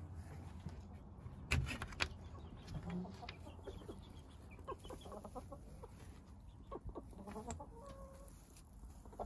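Two sharp knocks about one and a half and two seconds in as the wooden coop door and its metal latch are opened, then chickens clucking in short calls through the second half.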